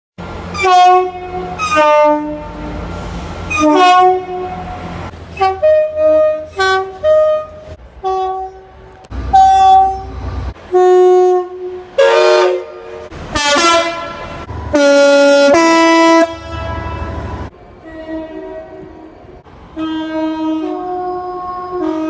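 Passenger trains sounding two-tone horns, one after another: many short blasts, often a high note followed by a low one, the loudest a long pair about fifteen seconds in. A low train running rumble sits under several of the blasts.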